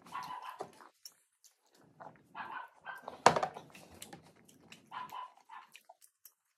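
Close-miked eating sounds: chewing and lip-smacking in short bursts, with fingers picking food off a plate and one sharp click about three seconds in.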